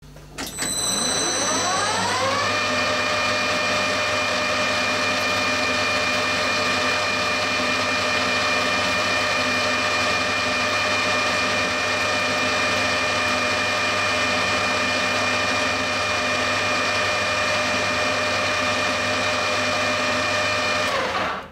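Metal lathe spindle and motor spinning up with a rising whine over about two seconds, then running steadily while the turning tool faces off the end of a metal bar. The whine cuts off abruptly near the end.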